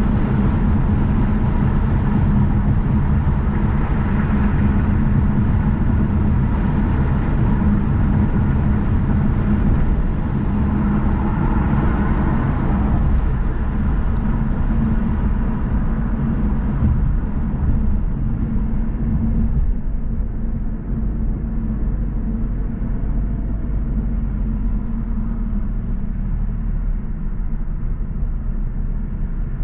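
Car driving along a road: steady low rumble of tyres and engine with a low hum. The higher hiss fades out about two-thirds of the way through.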